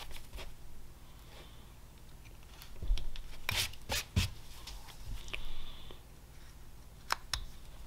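Whittling knife cutting into a basswood carving: short, crisp slicing and snapping cuts, a cluster of them in the middle and two more near the end.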